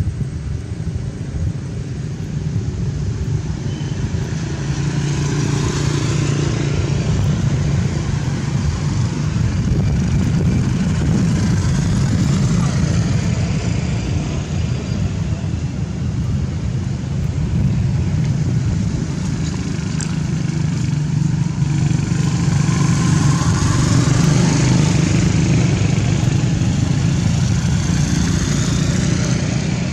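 Motor traffic passing by: a steady low engine rumble, with vehicles swelling louder and fading several times.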